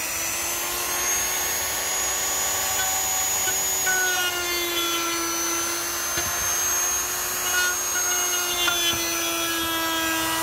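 Dremel Multi rotary tool running at a steady high-speed whine, its small brush bit scrubbing grime off the brass boiler and copper steam pipe of a Mamod model steam engine.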